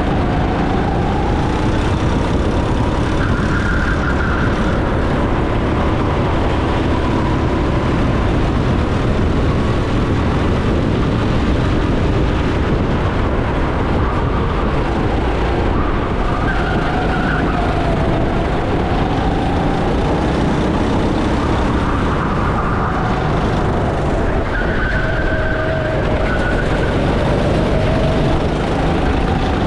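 Racing go-kart engine at full racing pace, its pitch climbing and dropping again and again as the kart accelerates and brakes through the corners, over a heavy rumble of wind on the onboard microphone.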